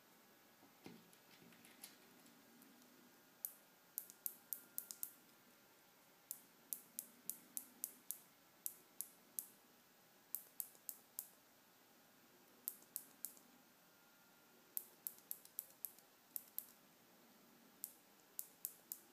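Sharp, light clicks in irregular clusters of a few at a time, with short pauses between groups: small mechanical switching clicks from a homemade antenna rotor controller test setup. A softer knock comes about a second in.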